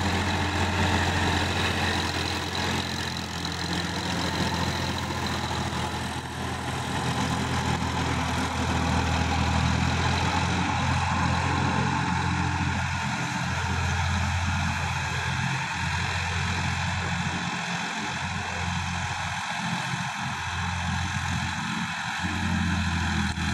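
Sonalika DI-50 RX tractor's diesel engine running steadily while driving a rotary tiller through dry soil. The low engine note dips and recovers a few times in the second half as the load varies.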